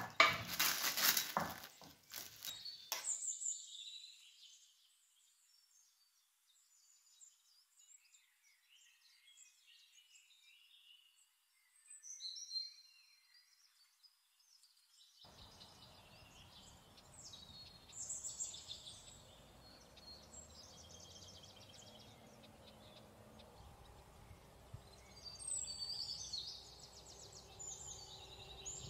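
Plastic cling film crackling as it is pulled off a bowl for the first few seconds. After that, faint, high bird chirps and song, with a low steady hiss joining about halfway through.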